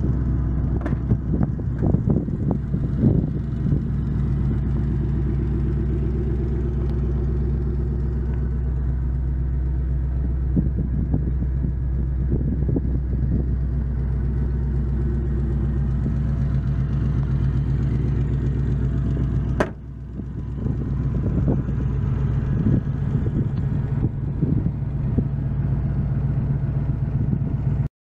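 The truck's fuel-injected 6.0-litre LS V8 idling steadily, with a single sharp click and a brief drop in level about two-thirds through. The sound cuts off abruptly at the very end.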